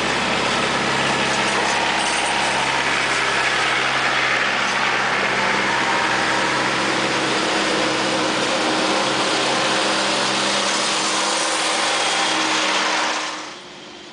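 Tractor engines running as the tractors drive past one after another: a loud, steady engine noise with a low hum underneath. It drops away sharply shortly before the end.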